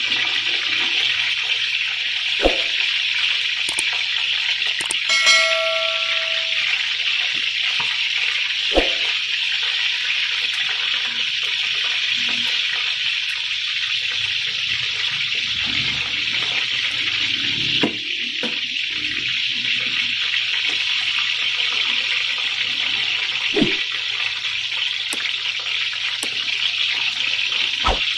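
Hot oil sizzling steadily in a frying pan as eggs fry inside bitter melon rings, with a few light knocks of a utensil against the pan and a brief tone about five seconds in.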